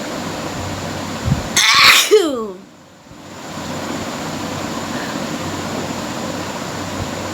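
A single sneeze about two seconds in, a sharp explosive burst ending in a voiced sound that falls in pitch, over a steady background hiss.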